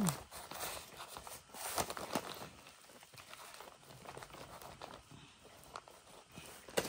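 Black plastic mulch film crinkling while a hand trowel scrapes and digs soil out of a planting hole, in scattered scrapes and taps, with a sharp tap at the start and another near the end.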